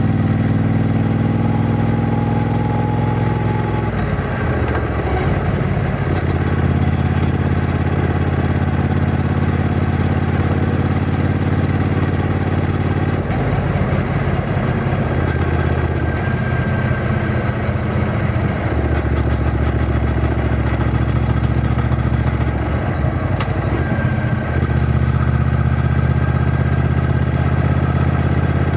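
Triumph Bonneville T120's 1200 cc parallel-twin engine running while the motorcycle is ridden, its exhaust note holding steady and then jumping to a new pitch about four times as engine speed changes.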